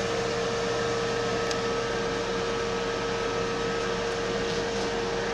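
Portable clothes dryer's blower running steadily, an even rush of air with a constant hum.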